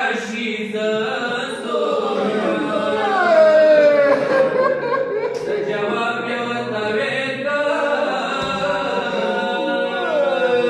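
A man chanting a Pashto rubai (devotional quatrain) unaccompanied, in long melodic held notes that slide downward at the ends of phrases.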